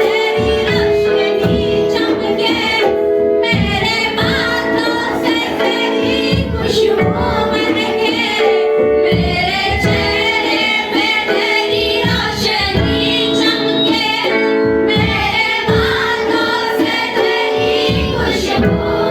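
Female voices singing a worship song over instrumental accompaniment with a steady beat.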